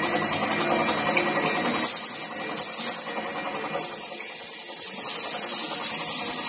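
Spray gun hissing as paint is sprayed onto a motorcycle fuel tank: two short bursts starting about two seconds in, then a continuous spray from about four seconds. A machine hum runs underneath in the first two seconds.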